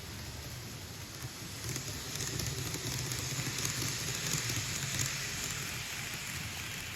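Old-livery Hokuto train running, a hissing rush over a low hum that swells about two seconds in and eases near the end. The uploader takes the motor noise for a sign of wear, with the motor starting to make an abnormal noise.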